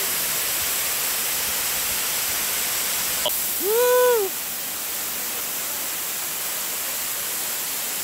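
Waterfall rushing steadily over rock ledges, heard close on the microphone. About four seconds in, a person's voice gives a brief rising-then-falling sound, louder than the water.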